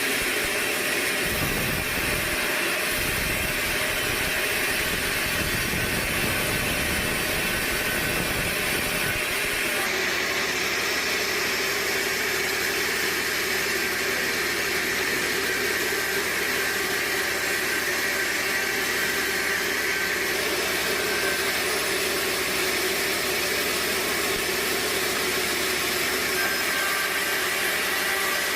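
Sawmill machinery running steadily; its sound changes abruptly about ten seconds in.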